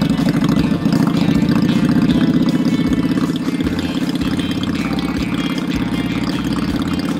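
Cruiser motorcycle engine idling steadily with a fast, even pulse.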